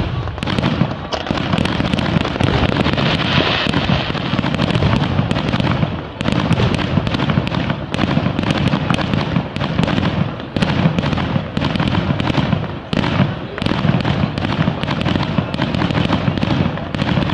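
Aerial fireworks going off in a dense, continuous run of bangs and crackling bursts, with a couple of brief lulls.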